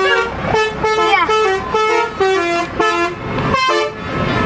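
Telolet 'basuri' multi-tone vehicle horn played manually as a tune: a quick run of short horn notes hopping between a few pitches.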